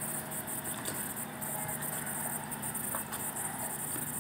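Steady hiss of light rain outdoors, with a few faint ticks and a low, even hum underneath.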